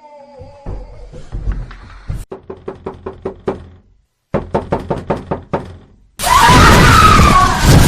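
Rapid knocking on a door in two quick runs, about six knocks a second, with a brief pause between them. About six seconds in, a sudden loud, harsh noise breaks in and dominates.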